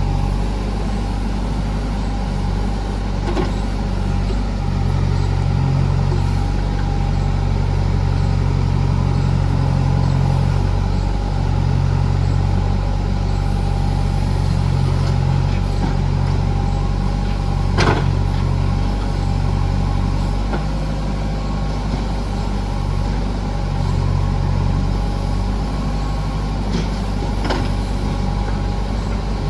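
JCB backhoe loader's diesel engine running steadily, swelling and easing as the load changes, with one sharp metal clank a little past halfway and a few lighter knocks.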